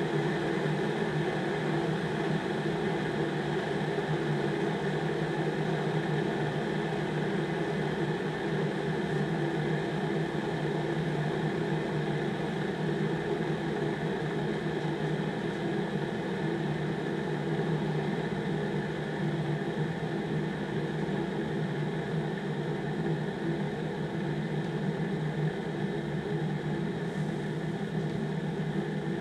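Instant Pot Zen 1.5 L electric kettle heating water on quick boil, a steady rushing hiss from water that is close to boiling.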